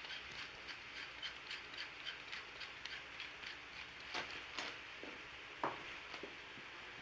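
Cabbage, meat and bell pepper cooking in a frying pan, sizzling softly with faint crackles. A few sharper clicks come past the middle; the loudest is a little over five seconds in.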